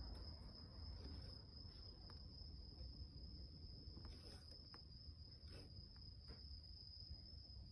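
Near silence: a faint steady high-pitched whine, with a few faint clicks.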